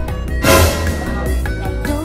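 Background music with a steady beat, with a brief burst of noise about half a second in.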